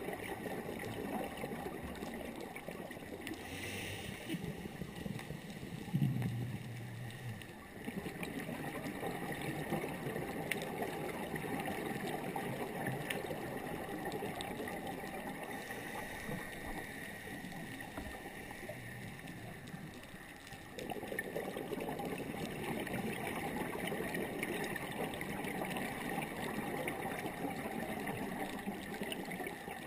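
Muffled underwater noise through a diving camera's housing: a steady rushing, gurgling hiss. It dips briefly about eight and about twenty seconds in, and a short low hum sounds around six seconds in.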